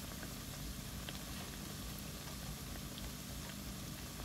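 Plantain slices deep-frying in hot coconut oil in a pan: a steady bubbling sizzle with small scattered pops.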